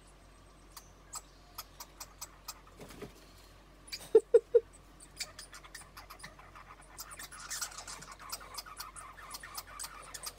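American red squirrels squabbling at a feeder, chattering: scattered sharp clicks, then a faster run of ticks from about seven seconds in. Three short low notes in quick succession about four seconds in are the loudest sound.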